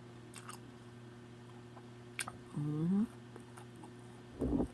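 Mouth sounds of a woman eating: a few sharp lip-smacking clicks, a short hummed 'mm' about halfway through, and a louder low mouth sound near the end, over a faint steady hum.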